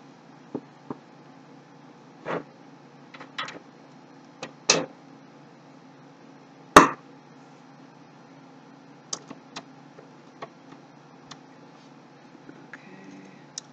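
Irregular clicks and knocks, about a dozen in all, from screws and a screwdriver against a metal computer case while a power supply is screwed in. The loudest, sharpest knock comes about halfway through.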